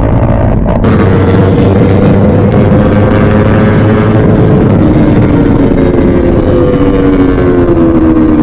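Drag-racing motorcycle engine held at high revs with an unmuffled, steady note that sags slightly in pitch over the last few seconds.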